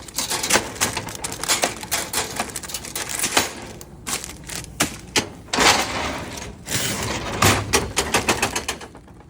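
Rapid clicking and clattering with bursts of crinkling plastic, as packaged snacks are pulled out of a vending machine and handled.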